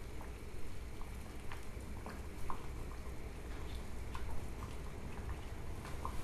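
Water boiling in a small stainless-steel saucepan on a gas burner: scattered small bubble pops, a few a second, over a steady low rumble.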